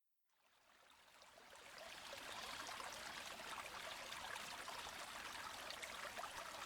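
Faint running water, like a small stream, fading in over the first two seconds and then flowing steadily.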